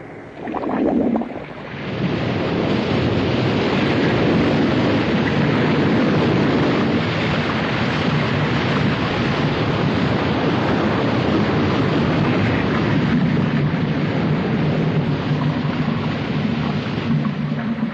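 Steady rushing water noise, an animated underwater sound effect of churning current. It builds up over the first couple of seconds, then holds steady.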